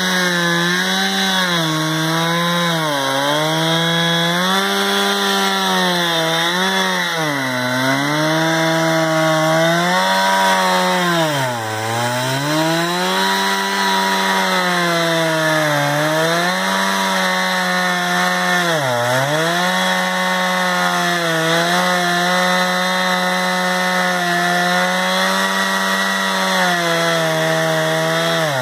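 Two-stroke chainsaw on a chainsaw mill running at high revs as it rips a log lengthwise into a slab. The engine pitch sags and recovers every few seconds as the cut loads the saw, most deeply about a dozen seconds in and at the end.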